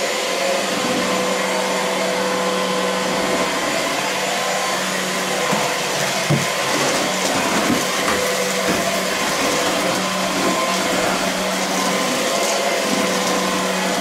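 Comfyer cordless stick vacuum running steadily, a motor hum and rush of suction air as its floor head is pushed over a hardwood floor, picking up hair and dust. A couple of brief clicks a little before halfway.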